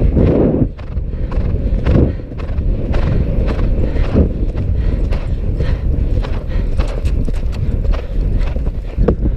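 Horse's hoofbeats pounding over turf at a gallop, under heavy wind buffeting on the rider's helmet-mounted microphone, with a few louder low puffs along the way.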